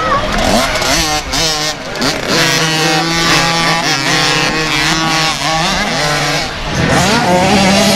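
Several small youth motocross bikes racing together, their engines revving up and down in pitch as they ride over a jump and through a turn.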